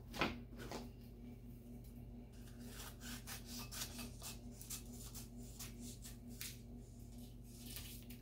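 Scissors cutting plastic shrink wrap in a series of faint, irregular short snips as it is trimmed around the edge of a bowl. A steady low hum lies underneath.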